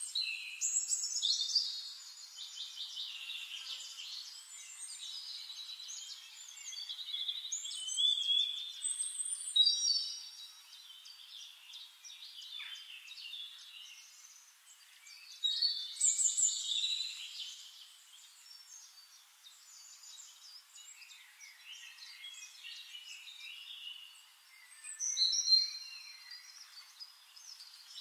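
Songbirds singing and chirping, several phrases overlapping, all high-pitched, with louder bursts of song about a second in, around eight to ten seconds, around sixteen seconds and around twenty-five seconds.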